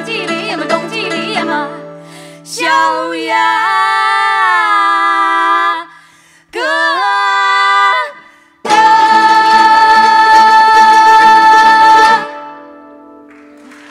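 Two women singing in duet over clawhammer banjo and guzheng (Chinese zither) plucking. Their sung phrases swoop in pitch and build to a long, loud held final note over repeated plucked notes. The note stops suddenly about twelve seconds in and leaves a faint ring.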